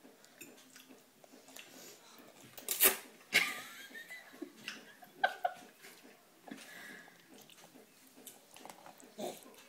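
A baby eating spaghetti with her hands: soft wet mouth and hand sounds, a sharp knock about three seconds in, then a short vocal squeal and a few small clicks.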